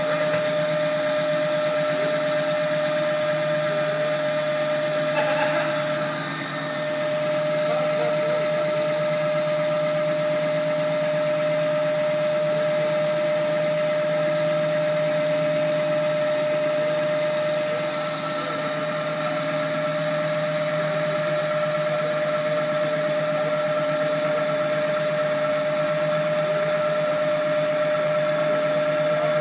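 Lathe running with a steady whine while the cutting tool turns a spinning wooden cylinder, giving a continuous high hiss of the cut. The hiss changes character about six seconds in and again near eighteen seconds.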